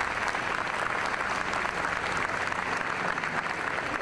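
Large audience applauding, dense steady clapping.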